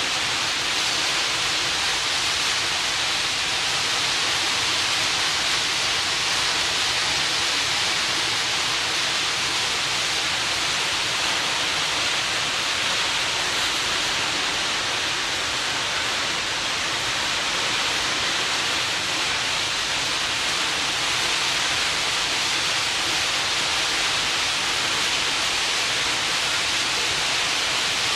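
Steady rushing hiss of sea water churned up by a moving ferry, its wake and hull wash foaming alongside.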